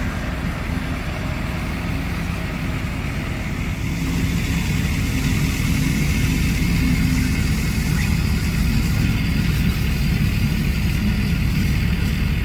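AM General M927 military truck's diesel engine idling steadily; it gets louder about a third of the way in.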